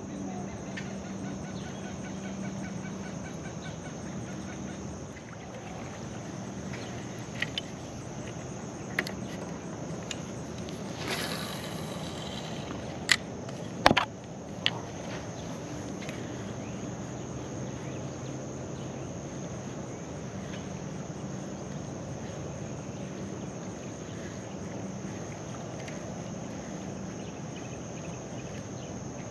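Steady, high-pitched chorus of insects droning without a break. A few short sharp clicks and knocks cut through it around the middle, just after a brief rush of noise.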